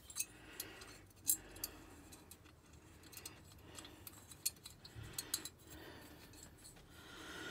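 Light, scattered metallic clicks and clinks: steel washers being placed over a moped engine's cylinder-head studs with a telescopic magnetic pickup tool, tapping against the studs and the aluminium cooling fins.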